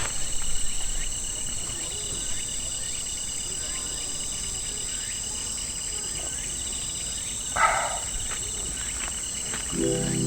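Evening insect chorus of crickets and other insects, several steady high trills at once with a pulsing chirp beneath them. A short louder sound cuts in once about three quarters of the way through, and music starts at the very end.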